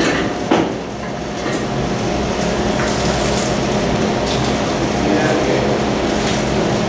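Steady low electrical hum of running equipment, with a few faint clicks and clatter on top.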